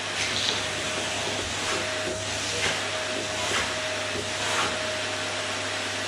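Canister vacuum cleaner running steadily with a constant motor whine. Its suction sound swells briefly about once a second as the nozzle is worked over the sofa cushions.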